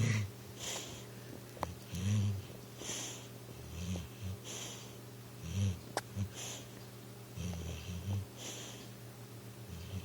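Pitbull snoring in its sleep, a noisy breath every one and a half to two seconds. A single sharp click about six seconds in.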